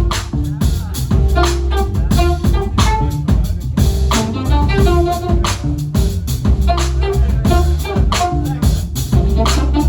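Live jazz band playing: a drum kit keeping a busy groove with many quick strokes, over an electric bass line, with melodic instrument lines above.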